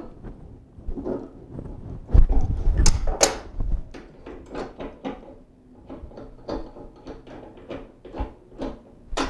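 Metal clicks and clinks as a table saw's arbor nut is loosened with pliers and turned off the arbor threads by hand, with a few louder metal knocks about two to three seconds in, then many small ticks.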